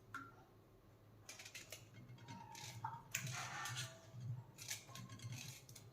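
A knife cutting peeled raw bael fruit into small pieces: a faint, irregular run of short cuts and taps, starting about a second in.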